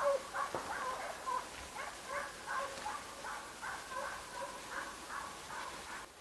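Hunting dog barking in a fast steady run on a wild boar's trail, about two or three barks a second, fading gradually.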